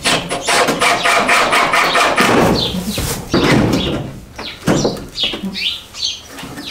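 A burst of noise, then short, repeated bird chirps that fall in pitch through the second half.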